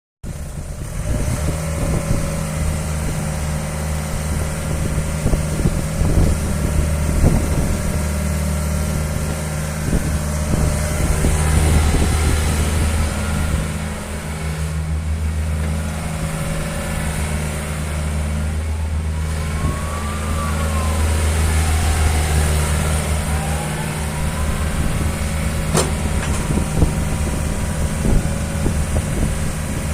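Hyundai Robex 55-7 midi excavator's diesel engine running steadily at a low idle. About two-thirds through there is a brief rising-then-falling whine, and near the end a single sharp click.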